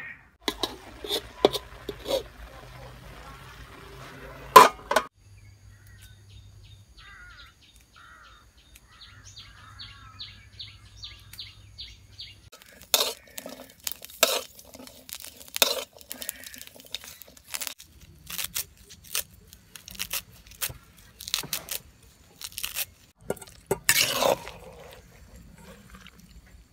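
Food-preparation sounds: first hands working mushrooms in a basin of water, a wet hiss with clicks, then after a quiet stretch many irregular sharp knocks of a utensil against cookware.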